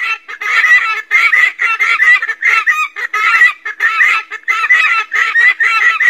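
Helmeted guinea fowl calling: a rapid, unbroken run of short repeated cackling calls, about three a second.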